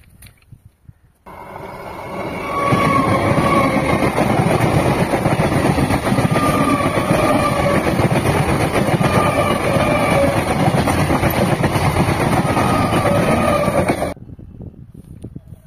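Passenger train passing a few feet away: a loud, steady rush of wheels and carriages on the rails, with short tones recurring every few seconds. It starts abruptly about a second in, swells, and cuts off sharply near the end.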